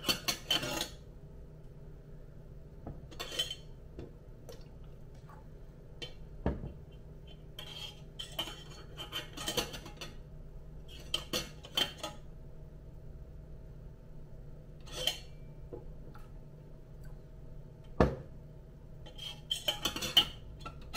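Stainless steel kettle lid and probe thermometer clinking and tapping as they are handled, in scattered bursts of small metallic clicks with a couple of sharper knocks about six and eighteen seconds in, over a faint steady hum.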